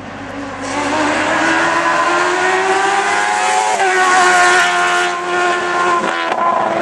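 Hillclimb race car engine at high revs, the pitch climbing steadily for about three seconds as it comes through the bend, then dropping sharply about halfway through and running on at high revs with brief dips.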